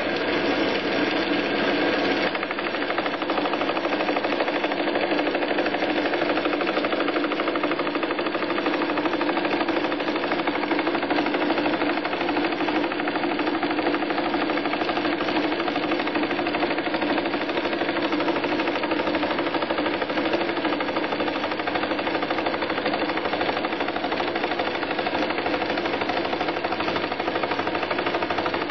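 Small hobby lathe switched on and running at speed, its spindle spinning a fly cutter that cuts a tooth space in an aluminium gear blank on a vertical mill slide. It starts abruptly and holds a steady, fast, even clatter.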